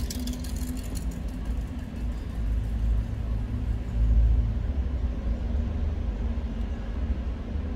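Low rumble of road traffic heard from inside a parked car, swelling briefly about four seconds in.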